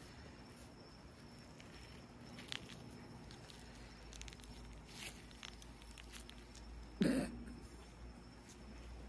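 Faint rubbing and small clicks of nitrile-gloved hands working a dead iguana's head and jaw. About seven seconds in there is one brief, louder low sound.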